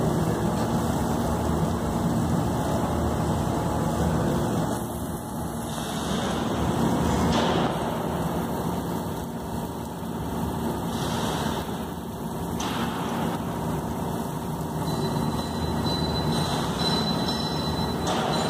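Steady industrial noise of a torch cutting into a large toothed steel gear, with a machinery hum underneath; the noise dips and swells a few times.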